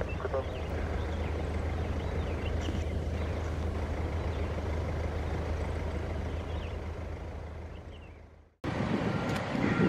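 Steady low drone of distant engines over outdoor airport background noise, with a few faint high chirps, fading out to silence about eight and a half seconds in before outdoor sound cuts back in abruptly.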